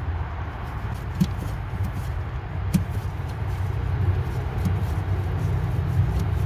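Steady low rumble of a motor vehicle in the background, with a couple of light metallic clicks as the nut and washer are set by hand on the shock absorber's top stud.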